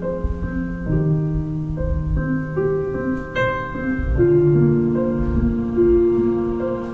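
Slow piano music, held notes that change about once a second.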